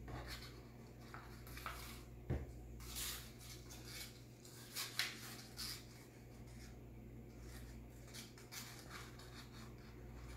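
Faint, scattered rustling of paper being handled and rolled into a tube, with one light knock about two seconds in.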